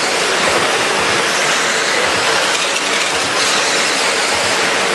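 A pack of 1/10-scale electric RC trucks with 13.5-turn brushless motors running laps on a dirt oval: a steady, even whirring hiss of drivetrains and tyres on the dirt.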